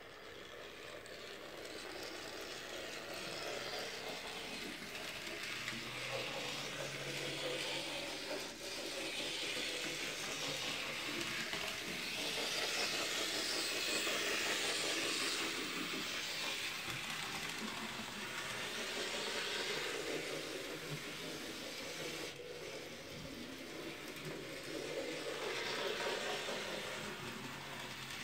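Dapol N gauge Schools class model locomotive running along the track under DCC control: a steady high whirr of its motor and wheels that grows louder as it passes close, about halfway through and again near the end.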